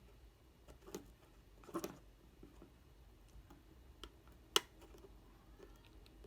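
A few faint, short clicks and taps, with one sharp click about four and a half seconds in, as the iPhone SE's two display cable press-fit connectors are pressed onto the logic board.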